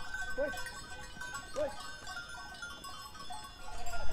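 A flock of sheep bleating, with single bleats about a second apart, over many overlapping steady ringing tones.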